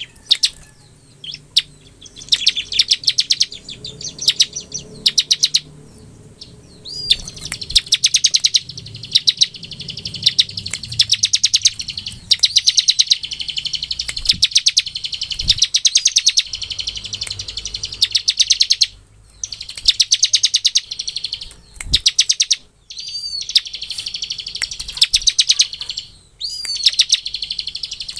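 Ciblek (bar-winged prinia) singing its rapid 'ngebren' song: long trills of very fast, sharp, high notes in bursts of one to three seconds with short pauses. Now and then a quick rising whistle breaks the trills.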